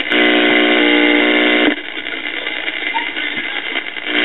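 AM broadcast audio from the speaker of a 1954 Mitchell AA5 tube clock radio: a steady pitched sound from the station breaks off suddenly about one and a half seconds in, leaving fainter hiss and crackle.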